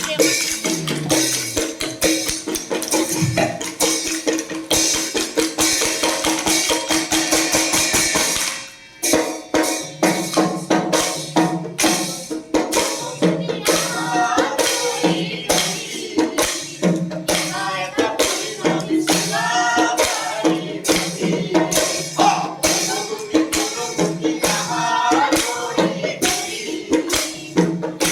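Music driven by a fast, steady tambourine rhythm with other hand percussion. It dips briefly about a third of the way in, and a voice sings over the rhythm from about halfway.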